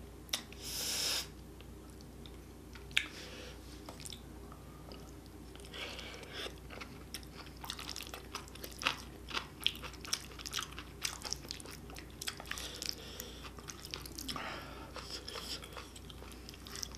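Close-up chewing and mouth sounds of eating spicy stir-fried octopus, with a dense run of small wet clicks in the second half. A wooden spoon scoops food from the pan.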